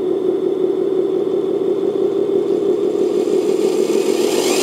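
RC crawler's electric motor and four-speed gearbox running in fourth, its top gear, with the wheels spinning free in the air: a steady drivetrain whir that rises in pitch about four seconds in as the throttle is opened.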